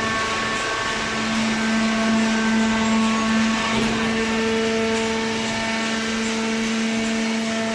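Hydraulic baling machine running: a steady motor-and-pump hum with a held low tone.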